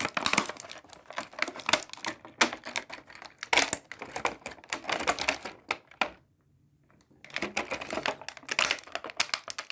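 Rapid clicking, rattling and crackling of hard plastic being handled as a toy figure and its parts are worked loose from the packaging, with a break of about a second a little past the middle.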